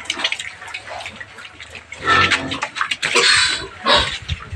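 A penful of piglets grunting and squealing as they jostle about, in irregular short noisy bursts with three louder ones about two, three and four seconds in.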